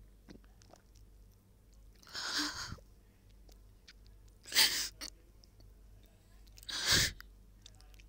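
A crying woman sniffling: three sharp sniffs about two and a half seconds apart.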